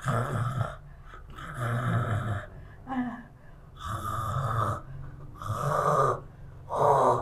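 A man's harsh, throaty breathing and groaning in repeated bursts, about six in the space of seven seconds.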